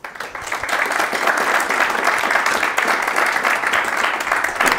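An audience applauding, many hands clapping together, breaking out all at once and holding steady.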